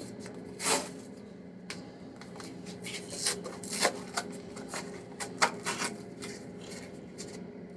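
Fingers picking and scratching at the flap of a cardboard baking soda box: a scatter of small scrapes and clicks, with a brief rustle about a second in.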